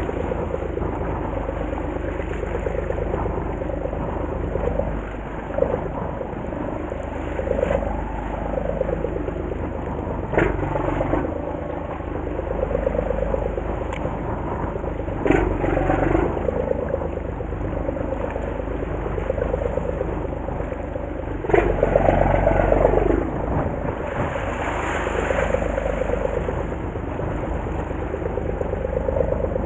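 A fishing boat's engine running at low speed, its pitch slowly rising and falling, with a few knocks along the way.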